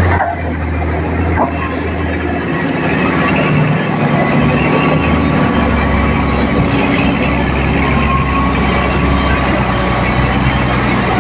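Kobelco 380XD crawler excavator's diesel engine running steadily under load as it digs and swings a full bucket. Its low note changes a couple of times as the load varies.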